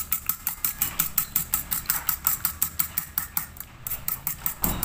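Fork beating eggs in a stainless steel bowl: the tines click against the metal in a fast, even rhythm of about seven or eight strokes a second, with a brief break near the end.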